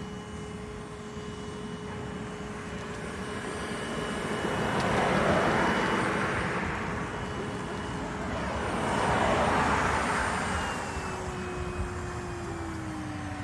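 Two road vehicles pass by in turn, each swelling up and fading away, over a steady hum whose pitch drops near the end.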